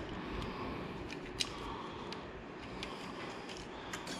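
A few light clicks as a gloved hand handles parts at the front of a motorcycle's fuel tank, over a steady low hiss.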